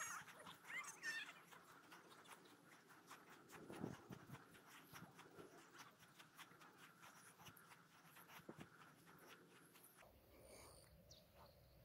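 Near silence: faint outdoor ambience, with a few faint, wavering high-pitched calls about a second in.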